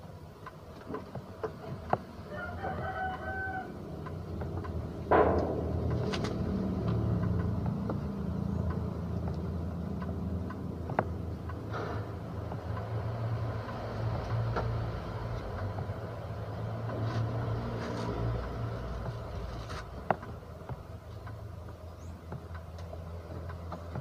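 A rooster crows about two seconds in, over a low steady hum. Scattered sharp clicks and a louder knock about five seconds in come from hand work on the washing machine's spin-dryer motor and its fittings.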